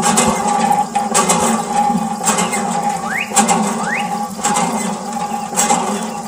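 Miniature model hand pump worked by its wire handle, clicking about once a second with each stroke, with a couple of short rising squeaks, over a steady hum.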